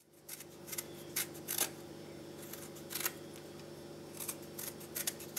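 Vegetable peeler scraping strips of peel off a lemon: about ten short scraping strokes at an uneven pace, over a faint steady hum.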